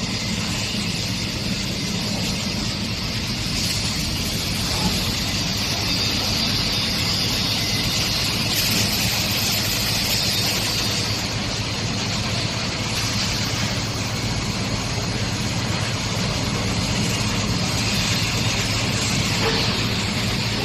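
Steady hum and hiss of a shell core moulding line's machinery running, with the hiss growing louder for about two seconds around the middle.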